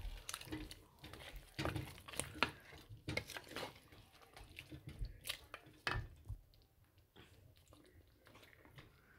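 Spatula stirring lamb pieces in a pot of hot oil: irregular scrapes, knocks and wet crackles, growing sparser after about six seconds.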